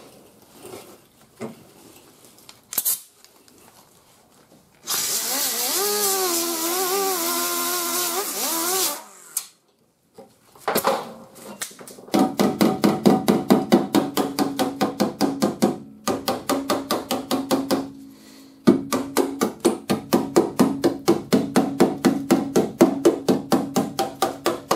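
Pneumatic air hammer beating fast, evenly spaced blows on the rust-thinned steel edge of a truck fender, with a metallic ring under the strikes. It goes in runs of a few seconds with two short pauses, knocking the rusted metal down and testing which metal is still sound. Before it starts, a loud hiss of about four seconds with a wavering pitch.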